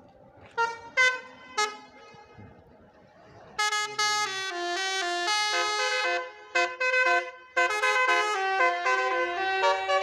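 A bus's telolet basuri musical horn, a multi-tone horn set. It gives about three short toots, then from about three and a half seconds in plays a fast tune of changing notes.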